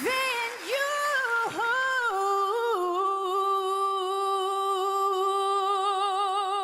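A single unaccompanied singing voice slides through a few short notes, then holds one long note with steady vibrato.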